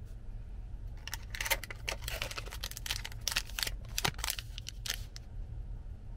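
Crinkling and rustling of a paper earplug wrapper being picked up and handled, a quick run of crackles lasting about four seconds, over a steady low hum.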